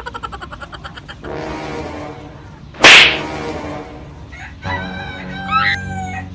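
Farmyard fowl calling: roosters crowing and clucking and a strutting tom turkey. A sudden, very loud, sharp call comes about three seconds in, and a run of gliding calls follows near the end.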